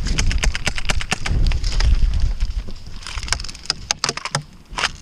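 Airsoft gunfire and BB hits: runs of sharp clicks and knocks, thickest in the first two seconds and again near the end, over a low rumble.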